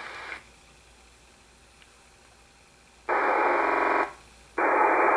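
Icom IC-R8500 communications receiver in FM mode, squelched and nearly quiet for a few seconds, then breaking open on two short bursts of harsh, buzzy digital-signal noise: one about a second long, and a second starting about a second later.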